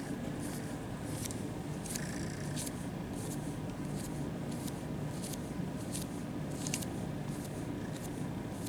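Kitten purring steadily close up, with soft rustles of a hand stroking its fur every half second or so.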